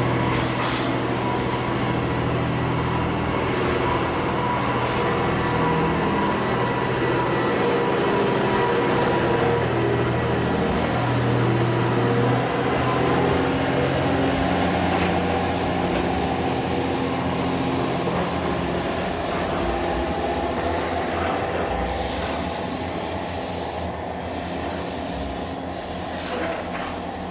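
JR Hokkaido H100 diesel-electric railcar pulling away from a station: engine running steadily and wheels on rail, gradually growing fainter near the end as it recedes.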